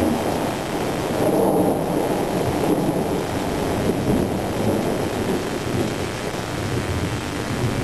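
Thunder rumbling over steady rain, swelling a second or two in and easing slowly.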